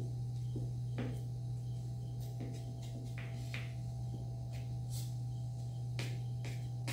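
Kitchen knife cutting through set chickpea and jaggery barfi in an aluminium tray: the blade scrapes through the crumbly slab and clicks against the tray bottom, a scattering of short strokes and taps. A steady low electrical hum sits underneath.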